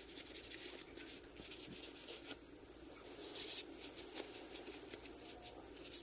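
A rag wiping and rubbing against a car's brake caliper: an irregular string of dry scratchy scuffs and rustles, busiest about three and a half seconds in.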